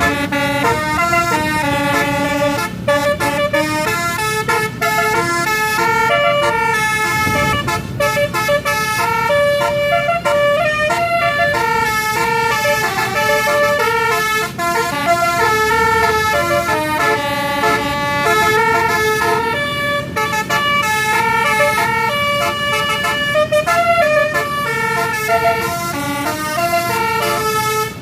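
Bus's basuri telolet horn, a multi-trumpet air horn playing a continuous tune, its notes stepping up and down with several tones sounding together.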